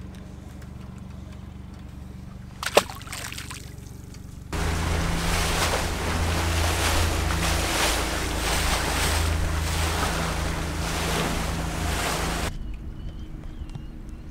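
Small fishing boat under way: its engine's steady drone under a loud rush of wind and water, starting suddenly about four seconds in and cutting off about eight seconds later. Before it, a quieter steady engine hum with a single sharp click.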